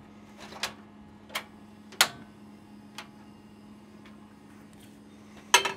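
Portable gas camping stove's piezo igniter clicking four times, irregularly spaced, as the knob is turned to light the burner. Near the end a louder clatter as the steel saucepan is set back on the stove.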